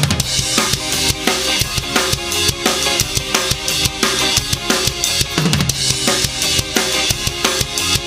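DW Collector's Series bubinga drum kit played to a steady rhythm: bass drum, snare and cymbals, with a cymbal crash at the start and tom hits in the middle. It is played along to a drumless ska backing track whose pitched instruments run underneath.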